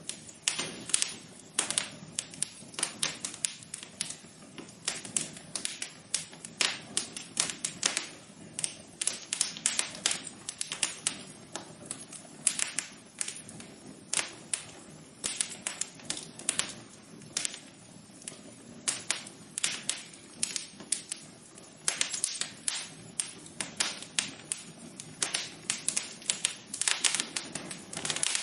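Fireplace fire crackling: irregular sharp pops and snaps, several a second, over a faint steady low rush.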